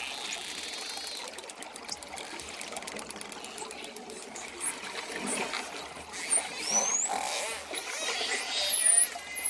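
Dolphins clicking and whistling over a steady wash of water. A fast train of clicks comes a couple of seconds in, then high whistles gliding upward in the last few seconds.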